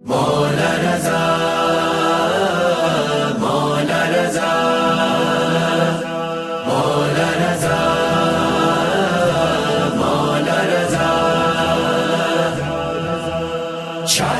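Background music of chanted singing, starting suddenly out of silence, with short breaks between phrases.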